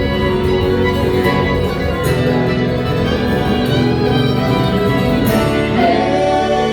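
Live band playing a song, with a singing voice over sustained instrumental notes.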